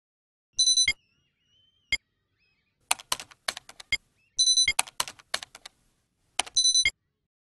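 Computer keyboard typing: sharp key clicks in several short, irregular runs, a few of the clusters with a brief ringing tone.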